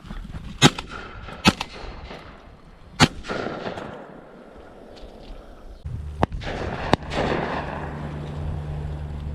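Shotgun shots at doves: three loud reports in the first three seconds, then two more a second apart about six seconds in. A steady low hum comes in shortly before the last two shots.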